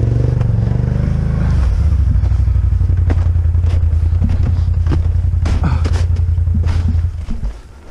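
ATV engine running steadily under load as the quad crawls over rocky forest ground, its pitch rising briefly about a second in, with a few sharp knocks from the machine over rocks and branches. About seven seconds in the engine sound drops away abruptly.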